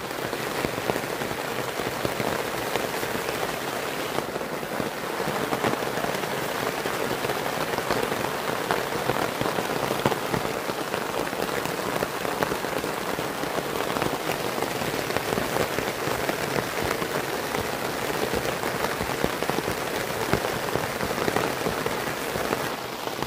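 Heavy rain pattering steadily on a stretched tarp overhead, a continuous downpour of dense drops.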